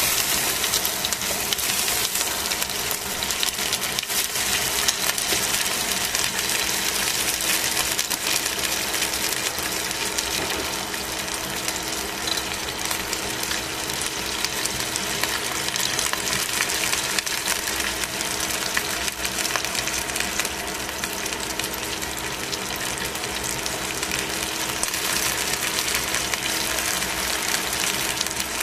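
Chicken wings frying in oil in a stainless steel pan, sizzling with a steady, dense crackle as the skin browns.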